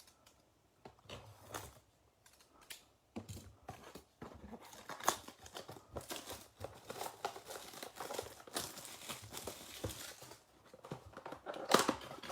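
Plastic shrink-wrap crinkling and tearing as a trading-card blaster box is unwrapped and opened by hand. A few scattered clicks at first, then steady crackling, and one loud sharp rip near the end.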